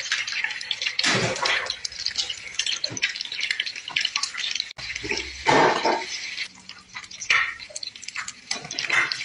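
Kitchen sounds of cooking: liquid pouring and dripping, with many short irregular clicks and clinks.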